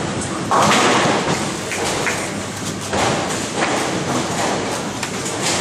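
Tenpin bowling alley: a bowling ball rolling down the lane and crashing into the pins, with sudden thuds and clatter echoing through the hall.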